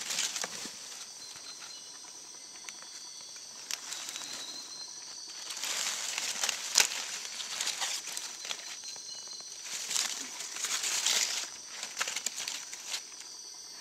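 Dry leaf litter rustling and crackling as a hand stirs through it, in two louder bouts with small sharp crackles.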